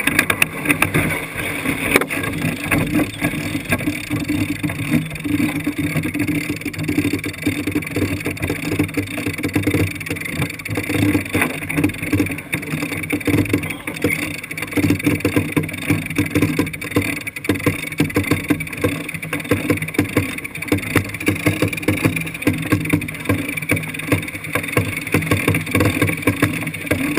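Sailboat heeled over under sail, its hull rushing through choppy water with a constant rush and quick, irregular slaps of water against the bow, mixed with wind buffeting the microphone.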